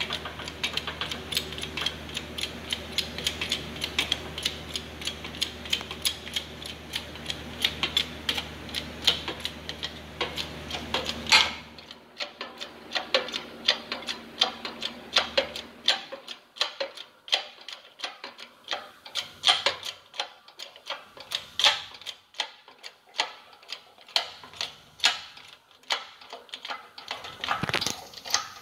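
Jack-driven shop press pressing an upper control arm bushing into its control arm: rapid, irregular clicking and ticking over a steady low hum. The hum drops out about twelve seconds in.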